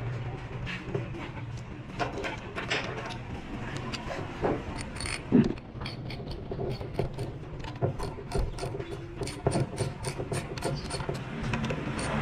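Hand tools working on engine parts: scattered metal clicks and knocks, then a quicker run of clicks in the second half.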